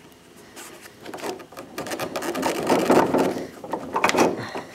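Hands rubbing and scraping against the rubber window track and metal frame of a Jeep Wrangler door, a run of rough scrapes and light knocks that grows louder in the middle.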